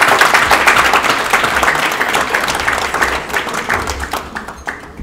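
Crowd applauding, many hands clapping together, the clapping thinning out and fading near the end.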